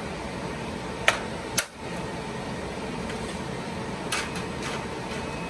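Sharp plastic clicks as the clear plastic air baffle is unclipped and lifted out of an open HP rack server: two clicks about a second in, then a short run of lighter clicks near the end, over a steady fan hum.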